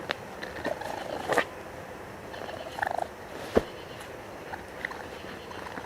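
Raccoon making short purring trills and chirps, one a fast pulsed trill about three seconds in, with a few sharp clicks, the loudest about three and a half seconds in.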